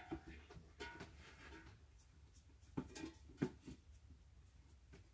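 Nearly quiet room tone with a few faint, short clicks and rustles of objects being handled.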